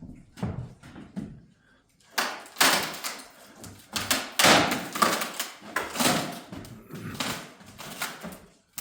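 Repeated heavy knocks and thuds of wooden stair and floor framing being struck during demolition. There are faint low bumps at first, then about a dozen loud blows at an uneven rhythm starting about two seconds in.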